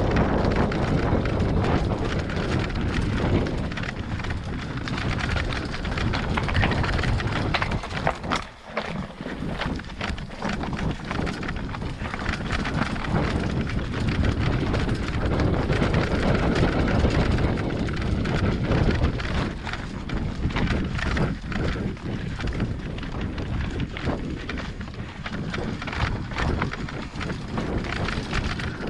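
Mountain bike descending a rocky trail: wind buffeting the helmet-mounted microphone over a constant clatter of tyres and frame jolting across loose stones. It eases off briefly about a third of the way through.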